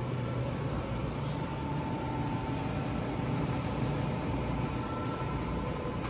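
Steady low hum of supermarket refrigerated display cases and air handling, with a faint thin tone that comes and goes.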